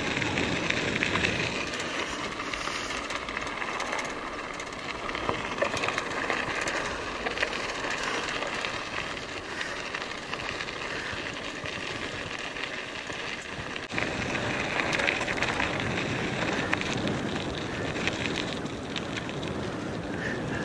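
Mountain bike tyres rolling fast over a gravel road: a steady crunching hiss with many small crackles of stones, louder from about two-thirds of the way in, recorded through a GoPro fitted with a foam windscreen.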